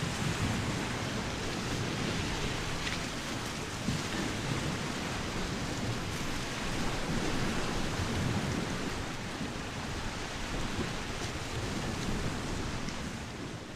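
Sea surf washing on the shore: a steady rushing noise with low rumble that fades out near the end.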